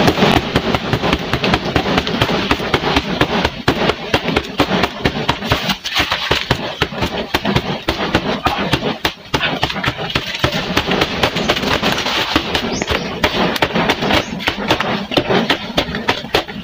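Bare fists repeatedly striking the soft, fibrous trunk of a banana plant, dull blows in quick succession with short breaks about six and nine seconds in.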